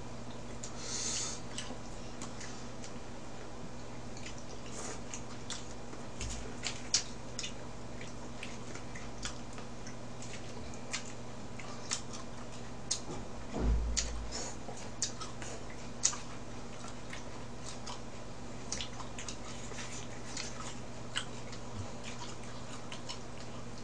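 A person chewing and eating raw mullet sashimi, with many small, irregular mouth clicks and chopstick taps over a steady low hum. A single dull thump about fourteen seconds in is the loudest sound.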